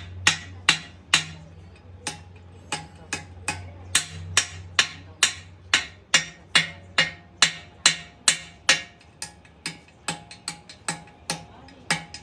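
Hammer blows on steel, struck steadily at about two to three a second, each blow ringing briefly.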